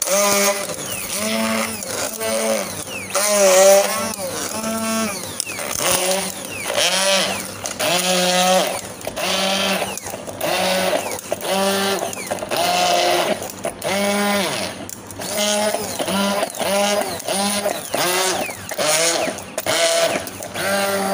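Electric blender run in short pulses on aloe vera gel, malunggay leaves and ice cubes: the motor whines up and down with each pulse, about one or two a second.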